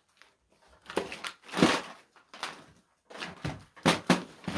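A large, heavy tin-plated metal can being gripped and tipped over on a wooden tabletop: a few separate scrapes and knocks, about a second in, again near the middle, and a cluster near the end.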